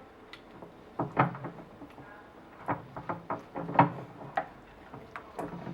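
A spoon or spatula knocking and clacking irregularly against a microwave-safe bowl while melted chocolate is stirred, with the loudest knock about four seconds in.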